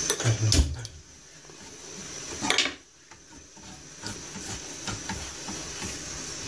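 Kitchen cookware being handled: a knock about half a second in and a sharp clink about two and a half seconds in, over a low steady hiss.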